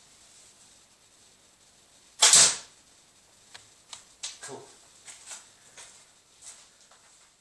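RHA Bushcrafter slingbow shooting an arrow: a loud, sharp release about two seconds in, then a run of small clicks and knocks.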